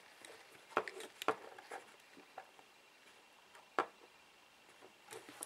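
A handful of faint, sharp clicks and taps as fingers and a soldering iron work at a small drone's plastic frame and circuit board, the sharpest a little under four seconds in.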